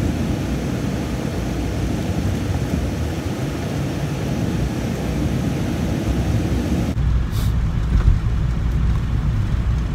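Cargo van driving on a snow-covered road, heard inside the cab: a steady engine and tyre rumble. About seven seconds in, the sound cuts to a lower, heavier cab rumble.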